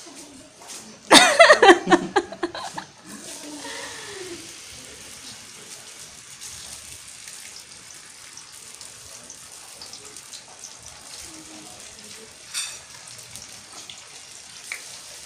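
A loud voice about a second in, then food frying steadily in a pan with a continuous sizzle, broken by one brief clatter near the end.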